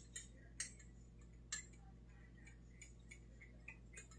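Faint, irregular clicks of a stirring utensil against a pot of soup as a thickening slurry is stirred in. A few separate clicks at first, then a quicker run of light ticks in the second half.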